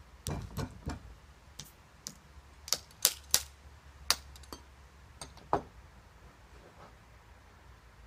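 Metal ramrod worked down the upright barrel of a muzzleloading underhammer percussion pistol: about a dozen sharp metallic clicks and taps at irregular spacing, the loudest three close together around the middle.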